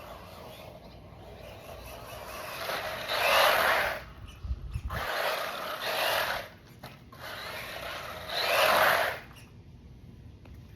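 Electric 1/14 scale 4x4 RC truggy driven in short bursts: three surges of motor and tyre noise, each about a second long, about three, five and eight and a half seconds in.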